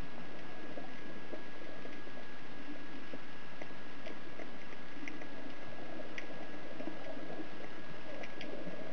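Underwater ambience picked up through a camera housing: a steady muffled rush with scattered sharp clicks, and a steady high-pitched tone throughout.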